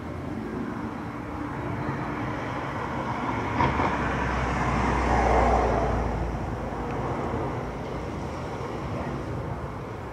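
A road vehicle passing by, its noise and low rumble swelling to a peak about halfway through and fading away, with one short knock just before the peak.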